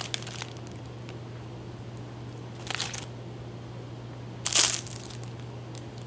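Plastic bag and paper envelope crinkling in two short rustles as small plastic citrus peelers are pulled out, one about three seconds in and a louder one near five seconds.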